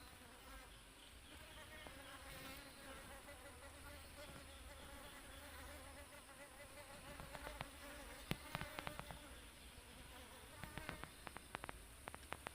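Drone (male) bees buzzing at their nest: a faint, wavering hum of many wings. Scattered sharp clicks come in clusters in the second half.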